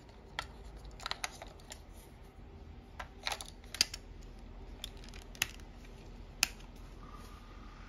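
Scattered clicks and taps of an Olympus C-755 digital camera being handled as its battery compartment door is swung shut over freshly loaded AA batteries and latched. The sharpest click comes a little before the middle.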